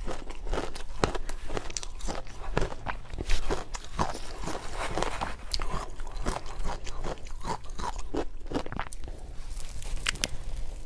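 Close-miked biting and chewing of powdery shaved ice dusted with matcha powder: a dense run of irregular, sharp crunches and crackles.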